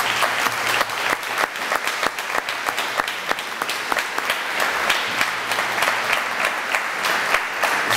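Audience applauding, a steady spread of many hands clapping.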